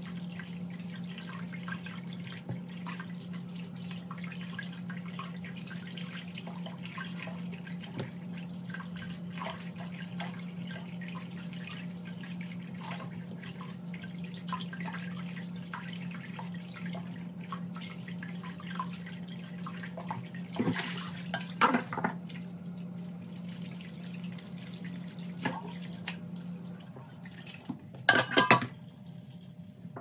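Kitchen tap running into a stainless steel sink bowl while pieces of raw fish are rinsed by hand, with splashing and dripping. Near the end the water stops and there is a brief clatter of the plastic colander knocking against the metal bowl.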